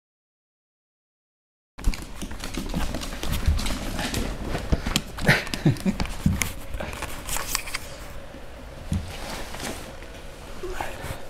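After about two seconds of silence, two puppies play-fighting and scrambling over a person's legs: scuffling, paw clicks and bumps come thick and irregular, busiest in the middle.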